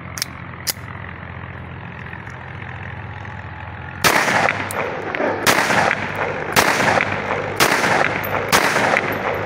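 Five shots from a locally made copy of a Russian TT (Tokarev) pistol in 30 bore (7.62×25 mm), fired about a second apart, starting about four seconds in. Two light clicks come before the first shot.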